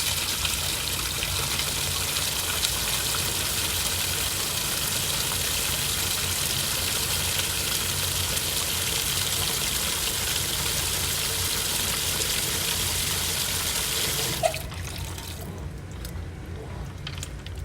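Water rushing into the drum of an AQUA coin-operated 7 kg washing machine as it fills, a steady hiss that cuts off suddenly about three seconds before the end.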